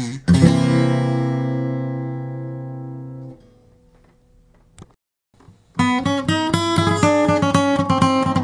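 Acoustic guitar music: a strummed chord rings out and slowly fades over about three seconds. After a short near-silent gap, rhythmic strumming starts again about six seconds in.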